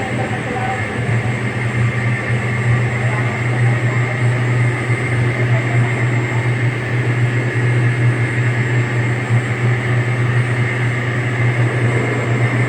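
Pellet-fired steam boiler plant running: a steady, loud low hum with a fainter constant high whine, as from the burner and its blower fan.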